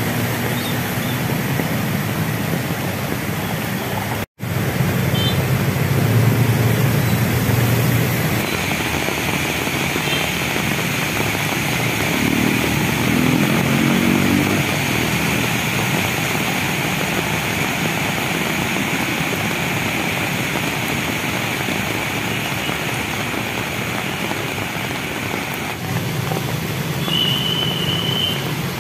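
Heavy rain and floodwater with cars and motorbikes driving through the flooded street: a steady hiss of rain and water, with engine noise rising in it now and then.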